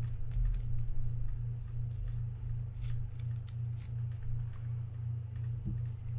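Light, irregular clicks and ticks of a nut being backed off and small metal parts being handled on a Shimano Curado DC baitcasting reel, over a steady low hum.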